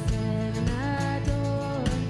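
A live worship band playing a Christmas song, with held sung notes over sustained instrument chords and regular drum hits.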